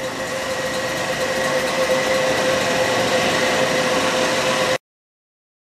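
Pneumatic forging hammer running in a workshop: a steady machine drone with a held hum and a higher whine over a faint low rhythmic pulse, with no distinct hammer blows. It cuts off suddenly near the end.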